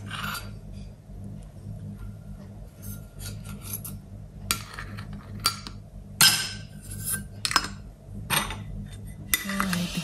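Aluminium Vietnamese phin coffee filter lids being set on the filters and handled: a scattering of light metal clinks and scrapes over a steady low hum.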